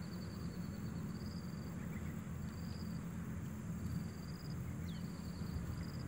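Insect chirping: short, high, even-pitched trills, about five of them, one every second and a half or so, over a steady low rumble. A brief falling whistle comes about five seconds in.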